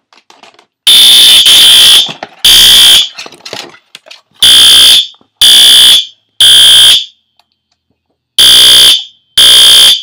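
System Sensor SpectrAlert ceiling-mount fire alarm horn strobe sounding its horn very loud in half-second blasts, three at a time with a longer pause between groups. This is the temporal-three evacuation pattern of a fire alarm set off from a pull station.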